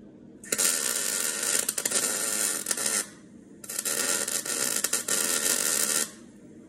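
Electric arc welding on a steel car sill: two runs of crackling arc, each about two and a half seconds long with a short pause between, as the welder lays tack welds on the new panel.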